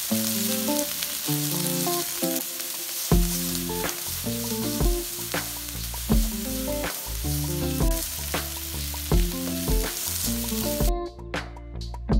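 Diced chicken, carrots and peas sizzling in hot oil in a wok as they are stir-fried with a spatula. The sizzling cuts off about eleven seconds in, and background music carries on alone.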